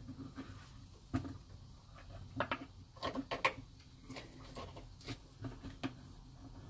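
Scattered light clicks and knocks of hands working the parking heater's electric coolant pump and its rubber hoses loose during removal.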